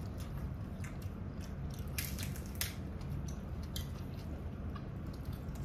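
People chewing and biting into soft flour-tortilla tacos, with scattered wet mouth clicks and smacks close to the microphone over a steady low hum.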